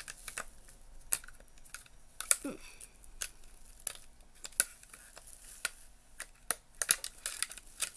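Scissors clicking and snapping at a tough plastic zip tie, irregular sharp clicks about one or two a second, with a brief small voice sound about two and a half seconds in.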